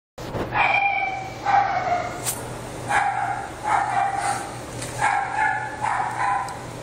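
Ferrets squealing while play-fighting: a series of about six short, high-pitched cries, each under a second, coming in quick succession.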